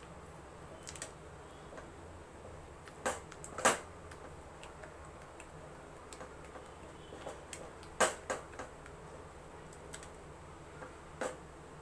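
Wooden spatula stirring thick halva in a stainless steel pan, knocking sharply against the pan a few times, loudest about four and eight seconds in, over a low steady hum.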